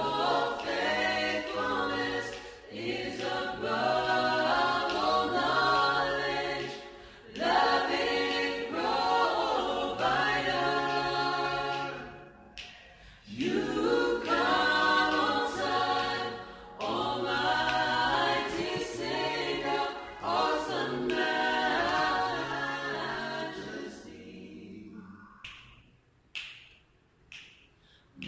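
A vocal group singing a worship song a cappella in harmony, in phrases with short breaks between. The singing stops a few seconds before the end, leaving a few faint clicks.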